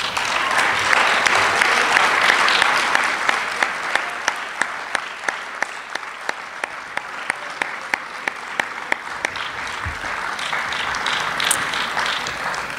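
Audience applauding, swelling quickly and then slowly dying down. Sharp single claps close to the microphone, about three a second, run through the middle of it.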